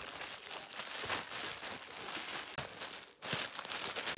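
A plastic courier mailer bag and clear plastic wrapping crinkling and rustling as a parcel is pulled open by hand, with a brief pause about three seconds in.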